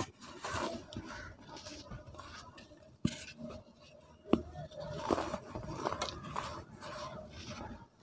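Hands crumbling and crushing a chunk of hardened pure cement over dry cement powder: gritty crunching and crackling with powder trickling. Two sharp snaps come about three and four seconds in as the chunk breaks in two.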